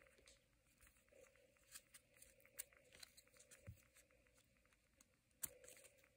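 Near silence with scattered faint clicks and snaps of trading cards being handled and flipped through by hand, the sharpest about five and a half seconds in.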